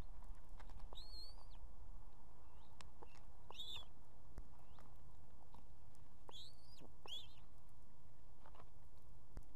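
Ospreys at the nest giving short, high whistled chirps while a fish is torn up for the chicks: about four clear calls, each rising then falling, with fainter ones between. Under them is a steady low rumble.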